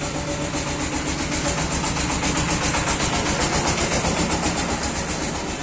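Loudspeakers driven by an NX Audio MT-1601 power amplifier on test, playing loud audio with a fast, even pulsing beat over a steady low hum.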